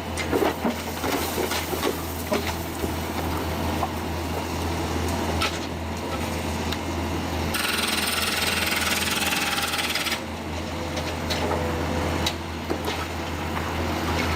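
Heavy machinery's diesel engine running steadily with a low drone, overlaid by scattered metallic knocks and rattles, and a stretch of hiss about eight seconds in.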